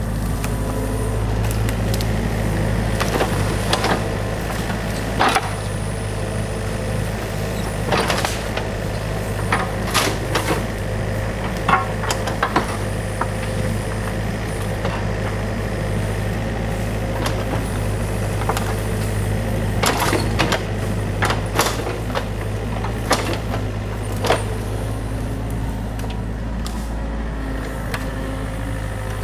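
New Holland compact excavator's diesel engine running steadily, with frequent short sharp knocks and clatter as the machine works.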